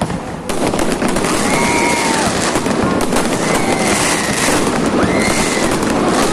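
Fireworks display: a few separate bangs, then from about half a second in a dense, continuous crackling of many bursts, with several rising-and-falling whistling tones over it.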